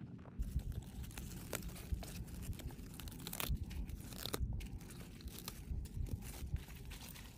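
Swiss chard leaves being picked by hand: crisp stalks snapping and tearing, with the leaves crinkling and a few sharp snaps.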